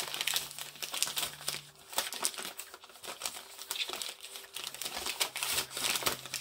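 Tissue paper crinkling and rustling with many small sharp crackles as a small wrapped package is unwrapped by hand.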